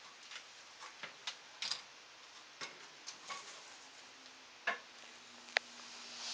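Faint, irregular light clicks and taps, about a dozen scattered over several seconds, with a sharper click near the end.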